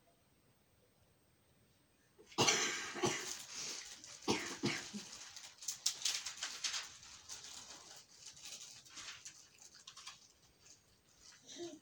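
A dog making noises close to the microphone. They start suddenly about two seconds in, after near silence, are loudest at first with a few strong strokes, and taper off.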